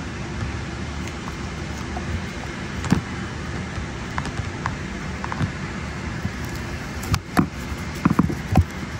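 Steady hum of an airliner cabin, with scattered clicks and knocks from screwdrivers working inside a seat armrest: one sharp knock about three seconds in and a cluster of louder knocks near the end.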